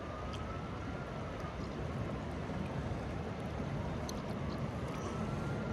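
Steady rush of river water and wind over the microphone, with a faint distant siren slowly wailing up and down in pitch. A few light water splashes from the barbel held in the current come later on.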